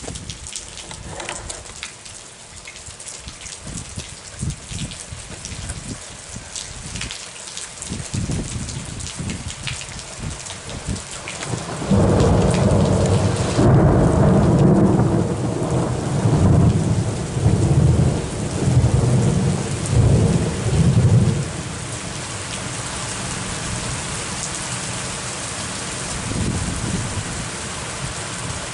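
Rain pattering steadily in a thunderstorm. About twelve seconds in, thunder breaks out suddenly and rumbles in several loud waves for about ten seconds, then the rain's hiss carries on alone.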